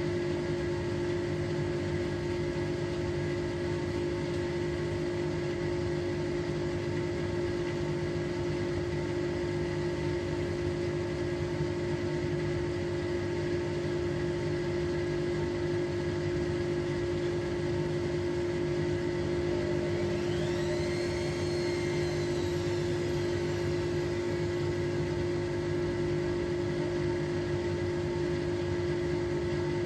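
Hotpoint Experience WMEF641 washing machine running with a steady motor hum. About twenty seconds in, a brief whine rises and then falls over a couple of seconds.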